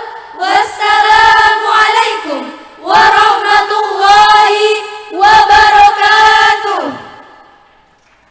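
A young women's choir singing an Arabic devotional song in three long held phrases. The last phrase closes the piece and dies away about a second before the end.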